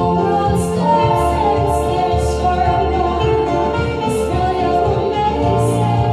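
Background music with singing: long held chords under a melody, with a light hit recurring about twice a second.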